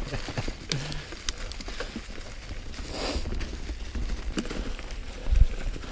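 Commencal Meta V4.2 mountain bike riding downhill over a trail of dry fallen leaves: tyres crunching through the leaves, with the chain and frame clattering and ticking over the bumps, and a low rumble of wind on the microphone. A heavy thump about five seconds in as the bike hits a bump.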